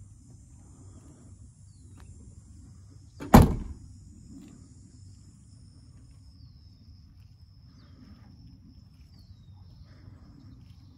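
Rear hatch of a 1997 Toyota Supra Turbo slammed shut: one loud thump about three seconds in. Steady high insect chirring continues underneath.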